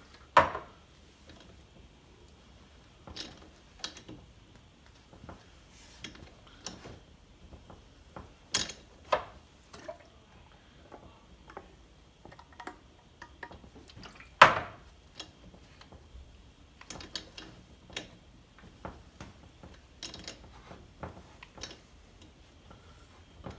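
Scattered small clicks and light knocks of hand tools being handled while a thread tap is worked into a chainsaw cylinder's spark plug hole, with a few sharper knocks about half a second in, around nine seconds and around fourteen seconds.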